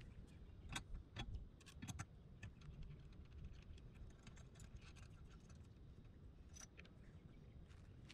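Faint, scattered light metallic clicks and taps, thickest in the first two seconds, as a metal antenna pole is raised and fitted into its mount on a camper's rear ladder.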